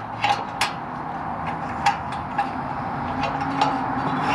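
Scattered light metallic clicks and taps as a retaining clip is worked by hand against the exhaust flap valve linkage of a BMW 340i, not yet seating in its groove. A steady background hiss grows louder near the end.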